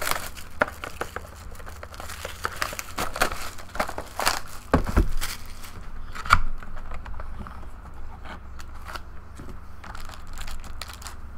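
Plastic shrink wrap crinkling and tearing as a sealed cardboard trading-card box is unwrapped, handled and opened: irregular rustling and crackling with a few louder crinkles midway.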